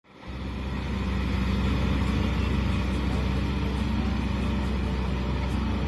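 Kubota M6040SU tractor's diesel engine running steadily under load while pulling a rotary tiller through flooded rice-field mud, fading in at the start.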